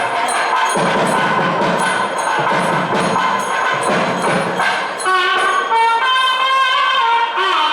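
Nadaswaram and thavil temple music: dense thavil drumming at first, then about five seconds in a nadaswaram's loud, reedy melody comes in over it, its notes bending and wavering.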